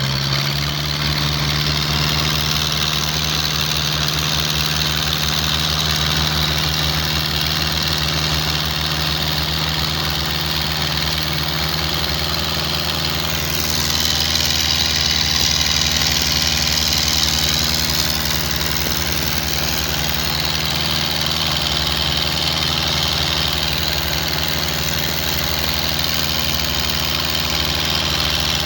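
Wooden fishing boat's engine running steadily with a fast low throb. A rushing hiss joins it about halfway through.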